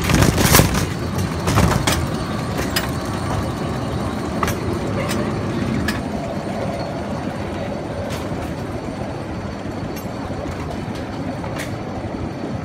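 Shopping cart riding a cart escalator: a steady mechanical rumble with scattered light clicks and rattles, and a few louder clanks in the first two seconds.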